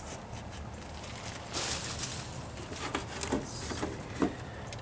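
A pencil scraping on a board while marking the outline of a 6-inch hole, with a few short, light knocks as the pieces are handled.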